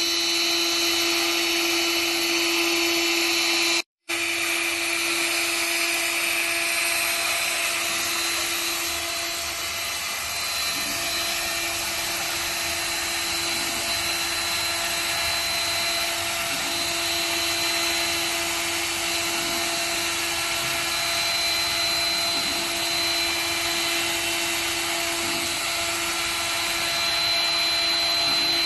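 CNC router spindle running steadily under a job, a constant whine over machine noise. The sound drops out for an instant about four seconds in.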